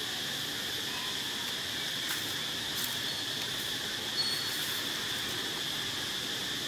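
Steady high-pitched insect chorus droning without a break, with a few faint ticks and one short high chirp about four seconds in.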